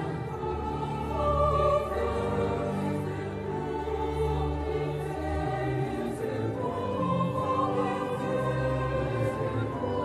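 Choir singing classical sacred music over a steady instrumental accompaniment, in long held notes.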